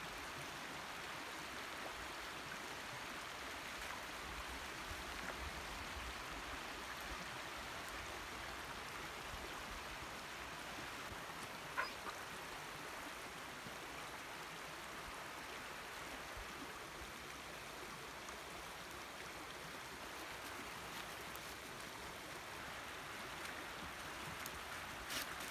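A small creek running steadily over rocks, an even rushing sound, with one brief sharp high sound about halfway through and a few light clicks near the end.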